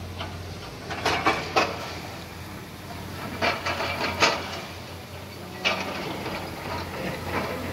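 Construction machinery at work: a steady low engine hum with several bursts of clanking and knocking, the loudest about a second in and again about four seconds in.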